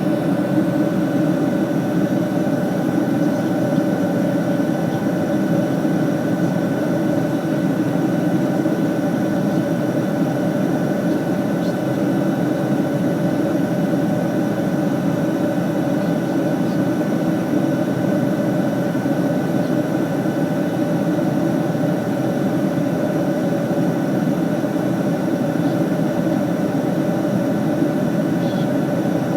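Steady cabin noise of a jet airliner in flight: an unchanging low rush of engine and airflow, with a few faint steady tones over it.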